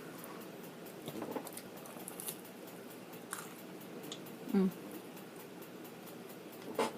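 Close-up chewing and soft mouth clicks of someone eating, with a brief hum about four and a half seconds in.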